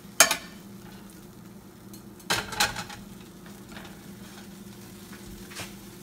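A spatula scraping and knocking against a frying pan and a ceramic plate as sauce and shrimp are served: a short clatter about a quarter second in, two more around two and a half seconds in, and a fainter one near the end. A steady low hum runs underneath.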